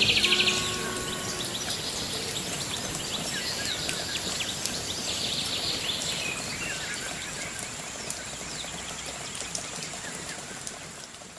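Birds chirping and trilling over a steady outdoor background hiss, fading out near the end. A few held music notes die away in the first second or so.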